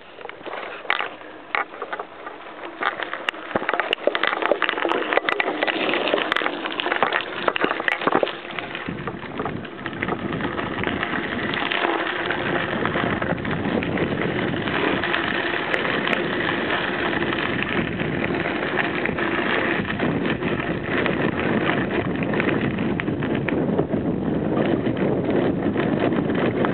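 Bicycle tyres rolling over a gravel path, with scattered crunching crackles in the first several seconds. From about nine seconds a steady rush of wind on the microphone takes over.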